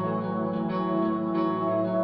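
Background music: plucked, guitar-like notes sounding over held tones, a new note about every half second or so.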